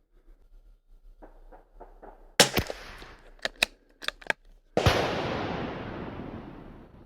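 Gunshots: a sharp shot about two seconds in, a few short clicks after it, then a second, louder blast whose noise trails off over about two seconds.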